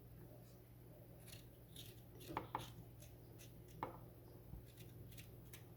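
Faint cutting of ginger: scattered soft clicks and knocks, the clearest a pair about two and a half seconds in and another near four seconds, over a low steady hum.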